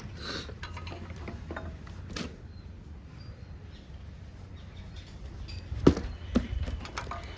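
Scattered metallic clicks and knocks of hand tools and engine parts being handled during engine assembly, with a sharp knock about six seconds in and another just after, over a low steady hum.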